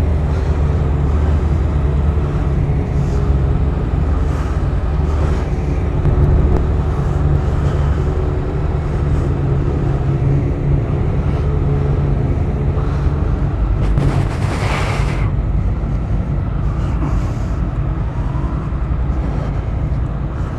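Motorcycle engine idling steadily, with a brief hiss about fourteen seconds in.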